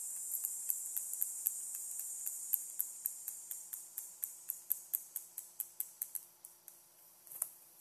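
Rapid, regular small clicks, about four a second, over a faint high hiss. Both fade away over the last few seconds, with one louder knock near the end.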